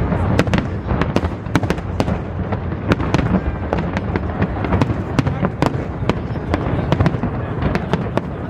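Aerial fireworks display: dense, irregular bangs and cracks of shell bursts, several a second, over a continuous low rumble of distant explosions echoing across the harbour.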